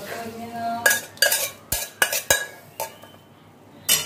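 Metal cookware knocking: a steel pot and a metal spatula clink and clank against a metal kadai, about eight sharp strikes with brief ringing, as boiled masoor dal is emptied into the pan and stirred.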